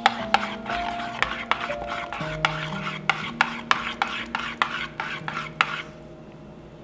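Metal spoon stirring thick yogurt-and-cucumber dip in a ceramic bowl: a wet stirring noise with the spoon clicking against the bowl many times, stopping about a second before the end. Soft music plays underneath.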